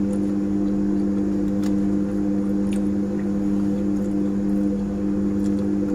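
Steady machine hum made of a few low pitches held constant, with faint clicks of cutlery against a plate now and then.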